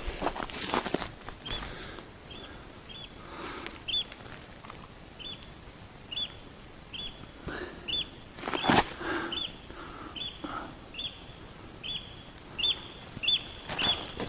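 Sharp knocks and scraping of small wood being split into kindling, the loudest knock about nine seconds in. A bird repeats a short high chirp about once a second throughout.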